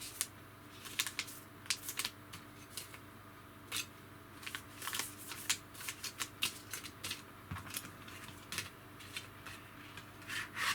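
Small plastic boxes and test-board pieces being handled: irregular light clicks, taps and rustles, a few sharper clicks near the end.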